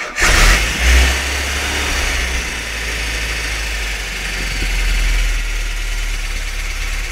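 1976 MGB GT's 1.8-litre B-series four-cylinder engine catching right after being cranked on the start button. It revs up briefly in the first second, then settles into a steady idle.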